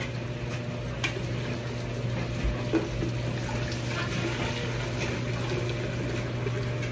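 Vinegar being poured steadily from a bottle into a container, a continuous splashing fill, over a steady low hum.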